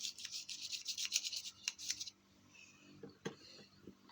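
Fast scrubbing strokes of a small brush against a diecast toy casting for about two seconds, then stopping, with a light click about three seconds in.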